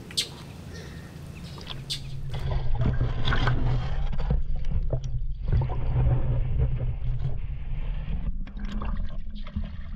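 Water sloshing and splashing around a camera held in the water, with a few sharp splashes at the start. About two seconds in, the sound turns muffled: a low rumble of water against the submerged camera housing, with scattered knocks.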